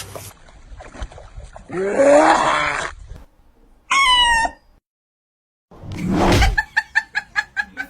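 A string of pet animal calls from separate short clips: a low wavering yowl about two seconds in, a brief high-pitched cry about four seconds in, then, after a moment of dead silence, a loud noisy burst followed by a quick run of short, repeated calls.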